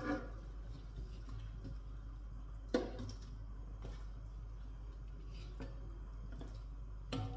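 A plate knocking lightly against a pot and the stovetop a few times, the sharpest knock a little under three seconds in, over a low steady hum.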